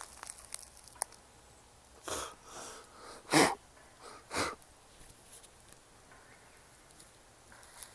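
A few short, breathy nasal sounds like sniffing or a sneeze: four quick bursts between about two and four and a half seconds in, the third much the loudest.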